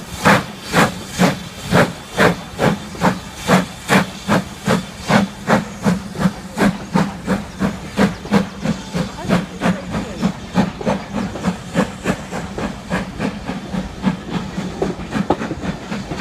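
Southern Railway U class steam locomotive 31806 working a train, its exhaust chuffing in a regular beat of about two and a half a second that quickens a little, then fading away over the last few seconds.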